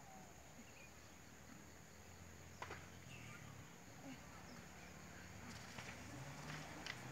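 Near silence: faint outdoor background with a few soft clicks, the clearest about two and a half seconds in and several more near the end.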